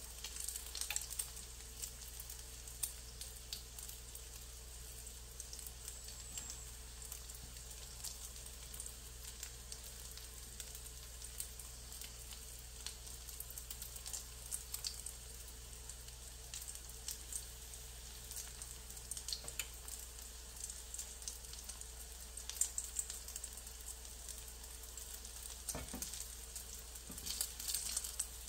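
A bean sprout and shrimp omelette frying in oil in a frying pan: a light, steady sizzle with scattered crackles and pops, busier near the end.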